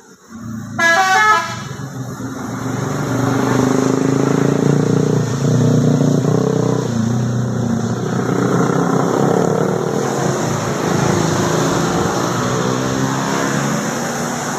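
Indonesian bus's musical telolet (basuri) horn: a short, loud rising run of notes about a second in, then a long stretch of shifting horn tones over the bus's running noise.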